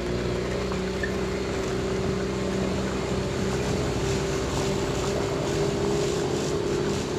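Car engine running steadily under load while driving uphill, heard from inside the cabin as a low hum with road noise.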